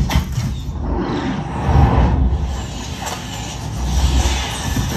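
Sound effects from a surround-sound demo track, over a heavy low rumble.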